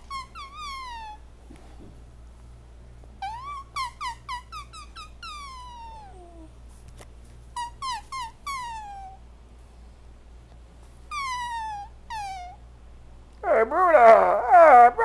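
Groups of short, high-pitched squeaky chirps, each falling in pitch, made at a pet. About 13.5 seconds in, a louder, longer, wavering call at a lower pitch answers them.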